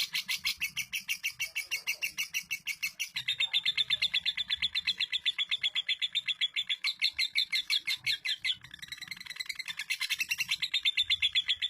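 Female lovebird singing a long, unbroken chattering trill (the 'ngekek' song prized for its duration), about ten rapid notes a second. It grows louder about three seconds in and dips briefly near the end.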